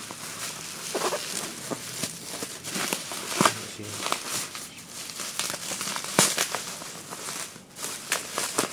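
Plastic bubble wrap crinkling and rustling as hands grip and work at it with scissors, broken by a few sharp snaps.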